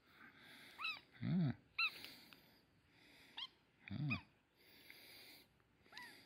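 Young kitten giving about five short, high mews, with two brief low hums in between.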